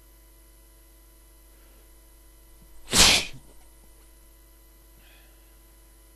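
A man sneezes once, loudly, about three seconds in, a sneeze brought on deliberately.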